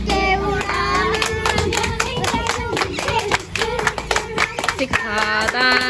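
Women singing Punjabi boliyan over a steady beat of rhythmic hand clapping, as in gidha. The singing comes at the start and again near the end, with the claps running on between.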